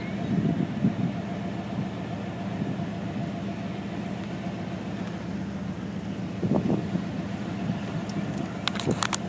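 Steady low rumble and hum like an idling vehicle engine, with faint low voices and a few sharp pops near the end.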